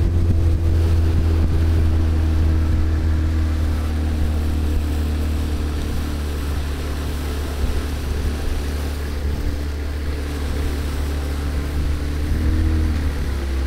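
Outboard motor running steadily under way, a low hum with a slight shift in pitch near the end.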